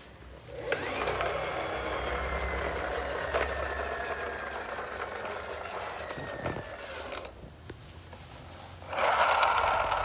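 Toy fire truck rolling across a tile floor, its drive whirring with a pitch that falls slowly, stopping suddenly after about six seconds. A second toy vehicle gives a shorter whirr near the end.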